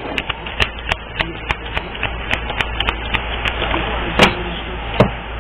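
Irregular light clicks and taps, a few a second, with two louder knocks near the end, over a steady rushing noise like passing traffic.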